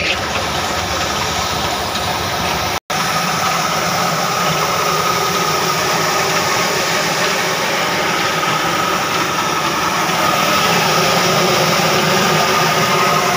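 Old diesel engine running steadily under load, driving a flour mill through flat and V-belts: an even mechanical din with a thin steady whine. The sound cuts out for an instant about three seconds in.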